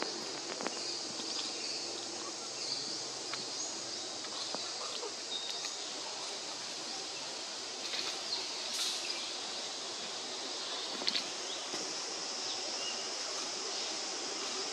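Outdoor forest ambience: a steady high insect drone with scattered faint chirps and clicks, and one louder click about eleven seconds in.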